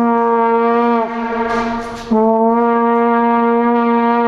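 Plastic horn (vuvuzela-type) blown in long, steady, brassy blasts on one low note. The first blast breaks off about a second in, and a second long blast starts about two seconds in.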